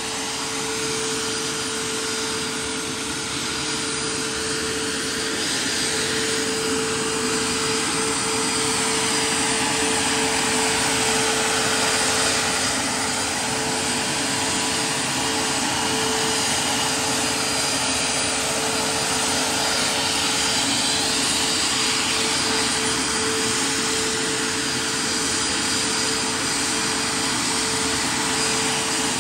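RC MD 600N scale helicopter in flight: its model gas-turbine engine, main rotor and the electric ducted fan that supplies its tail air run together as a steady whine, one held tone over a loud rushing air noise. The ducted fan is turned down on its throttle curve to cut its current draw.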